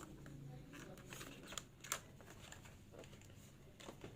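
Faint rustling and clicking of a small microphone's packaging being handled and tried open, with one sharper click a little under two seconds in.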